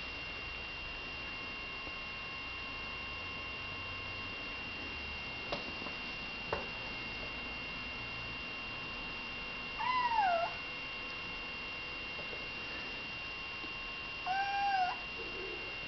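Eight-week-old Bengal kitten meowing twice, about four seconds apart: the first short meow falls in pitch, the second is a little longer and steadier. A faint steady high whine runs underneath, with two soft clicks shortly before the first meow.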